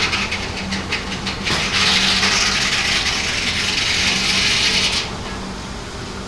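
Large steam-driven circular sawmill blade cutting a log on the carriage: a loud, steady hissing rasp, with clattering knocks during the first second and a half. The rasp cuts off sharply about five seconds in as the board comes off the blade, leaving a steady hum.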